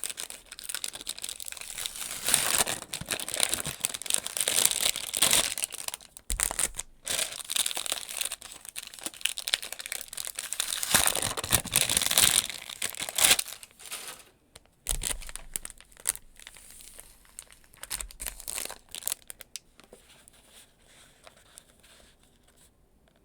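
Packaging crinkling and rustling as items are unwrapped by hand, with some tearing. The crinkling is busy for about the first fourteen seconds, then comes in sparser bursts and grows quiet near the end.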